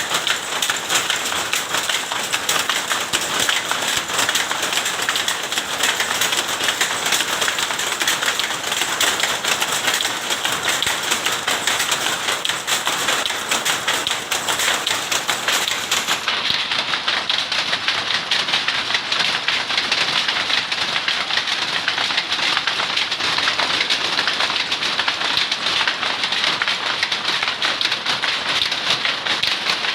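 Textile machine making tapis Lampung cloth, running with a steady, dense, rapid clatter of many fine ticks.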